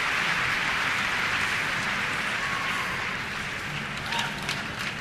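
Arena crowd applauding, a dense, even clapping that slowly fades, with a few separate sharper claps near the end.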